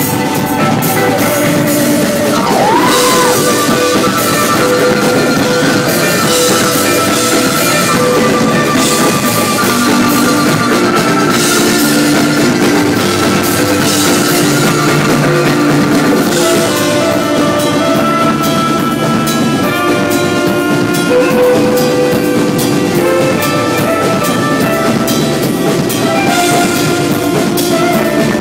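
Live band music: saxophones hold long notes over a drum kit and keyboard, loud and continuous.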